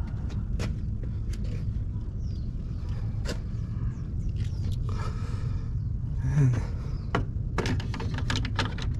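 Double-pole 20-amp plastic circuit breakers clicking and scraping as they are handled and hooked into a residential breaker panel. A cluster of quick clicks comes near the end, over a steady low rumble.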